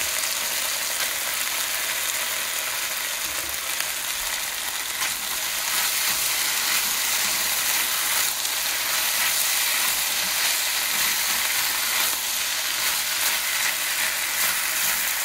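Pork and vegetables sizzling steadily in a hot cast iron wok on high heat, with a spatula clicking and scraping against the iron as the food is stirred and tossed.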